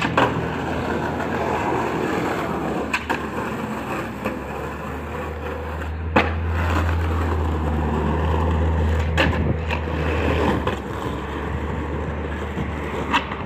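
Skateboard wheels rolling over rough concrete and asphalt, with sharp clacks of the board hitting the ground every few seconds. The rolling rumble is strongest about halfway through.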